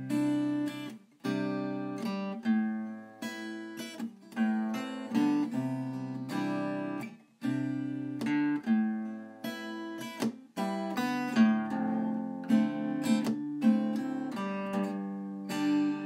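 Acoustic guitar music: chords plucked and left to ring, getting busier in the second half.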